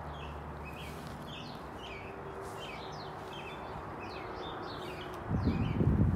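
Small birds chirping over and over, with a steady background hiss. About five seconds in, loud low rumbling noise on the microphone sets in and becomes the loudest sound.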